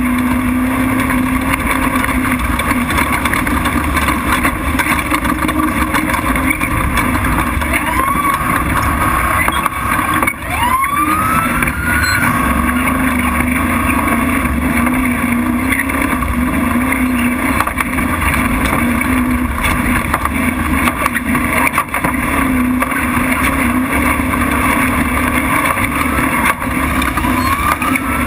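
Prerunner race truck's engine running hard at speed over a dirt track, with a steady engine note and road and wind noise. About ten seconds in the sound dips briefly and then climbs in pitch, as the engine revs up again.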